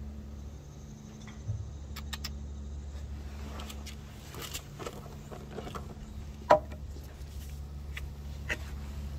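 A steady low mechanical hum, like a motor or engine running, with scattered light clicks and taps over it; the sharpest tap comes about six and a half seconds in.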